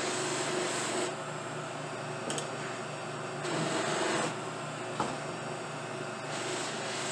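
Buffing machine running steadily with dyed briar pipe wood pressed against its spinning felt wheel, giving a hissing rush that drops away and returns twice as the pipe comes off and back onto the wheel. A single sharp click about five seconds in.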